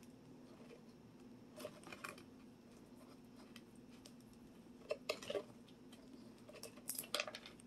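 Small plastic toy parts clicking and rustling in the hands as they are pressed together: a few faint, scattered clicks over a low steady hum.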